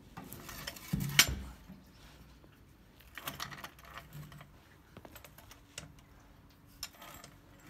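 Irregular knocks and clicks from a steel fuel tank and floor jack being handled as the tank is worked up into place under the car. The loudest cluster of knocks comes about a second in, with scattered lighter clicks after.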